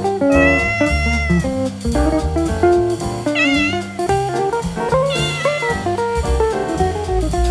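Background instrumental music led by guitar, with bass underneath, playing throughout.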